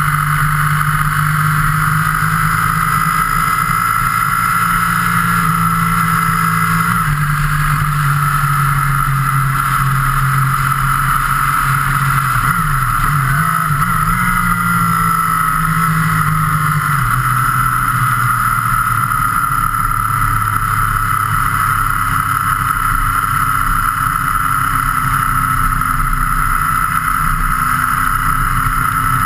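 Motorcycle engine running at road speed, heard from a camera mounted on the moving bike, over a steady rush of wind. The engine note drops in pitch twice, about seven seconds in and again near seventeen seconds, as the rider changes gear, with a brief dip and pick-up in between.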